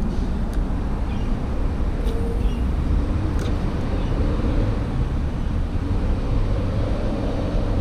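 Steady low rumble of road traffic, with a few faint clicks in the first few seconds.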